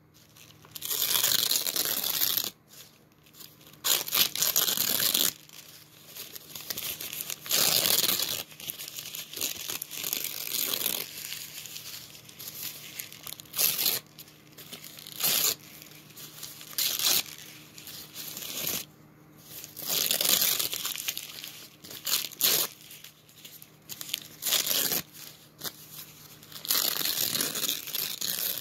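Subway sandwich wrapping paper being torn and crinkled by hand, in repeated irregular bursts of ripping and crumpling with short pauses between.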